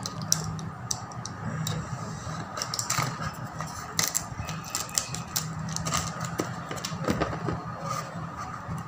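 Cardboard phone retail box being opened by hand: irregular light taps, clicks and scrapes of fingers on the box and the lid sliding off, over a steady low hum.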